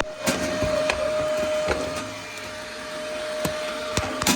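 Cordless stick vacuum cleaner with a high-speed brushless motor running steadily: a constant whine over the rushing hiss of suction, with scattered clicks and knocks throughout.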